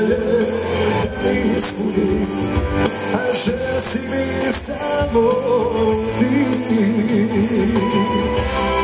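Live band music with a steady beat, played on keyboard, accordion and electric guitar.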